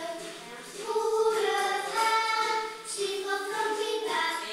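A group of small children singing a song together, with sustained notes that step from pitch to pitch.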